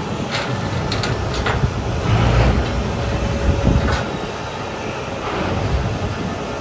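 M1 Abrams tank on a steel lowboy trailer, its track links clanking and squealing against the deck over a steady engine rumble. There are several sharp clanks in the first four seconds.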